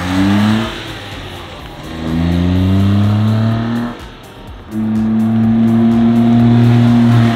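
1996 Honda Acty's three-cylinder engine on its stock exhaust, accelerating as the mini truck drives off. The engine note climbs three times, falling back between climbs as it shifts up through the gears.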